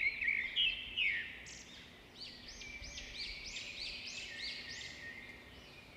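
A small songbird calling: a few quick chirps, then, from about two seconds in, a run of about eight to nine arched whistled notes, about three a second.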